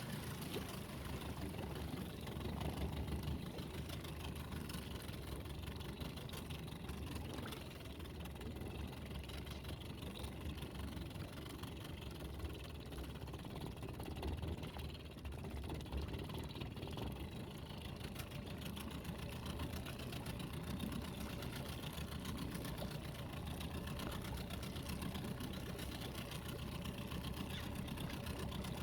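A small boat's engine running steadily at low revs, a continuous low rumble with a fast flutter.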